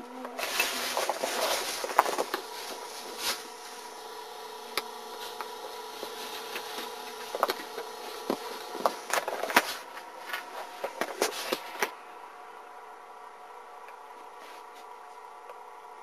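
Rustling and clicking, with sharp knocks now and then, over a steady hum; the rustling and clicks stop about twelve seconds in, leaving the hum alone.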